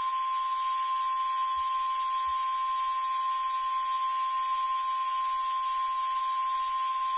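NOAA Weather Radio 1050 Hz warning alarm tone: a single steady high-pitched tone held without a break over radio hiss. It signals that a weather warning broadcast is about to follow.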